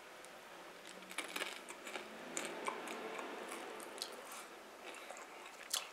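Faint, irregular crunching of a person chewing a small crisp chip snack, a crab-flavoured Tam Tam.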